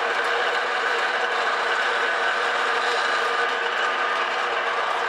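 Bandsaw running steadily with a constant whine, cutting through a fog light housing.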